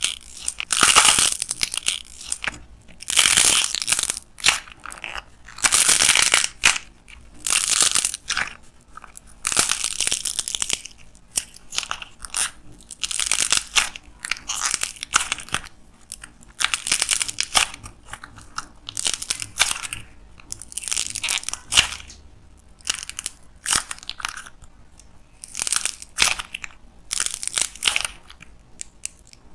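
Hardened modelling clay of a fake avocado cracking and crunching as hands squeeze and tear it apart. The crackles come in repeated bursts every second or two, with short pauses between squeezes.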